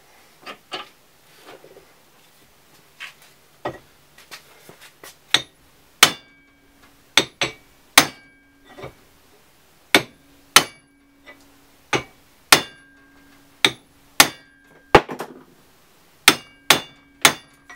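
Hammer blows on a Holden Commodore tailshaft's centre bearing, clamped in a vise, knocking the old bearing off the shaft. About two dozen sharp metal strikes: lighter and sparser for the first few seconds, then heavy blows one or two a second. The steel shaft rings after each heavy blow.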